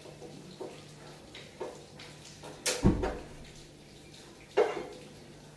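Spatula scraping and tapping in a frying pan on a gas stove, light clicks throughout, with a louder clank about three seconds in and another about a second and a half later. A low steady hum runs underneath.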